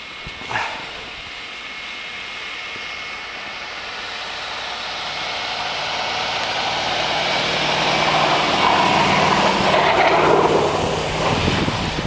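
A vehicle engine getting steadily louder as the vehicle draws near on a snowy street, with a rushing noise that swells near the end.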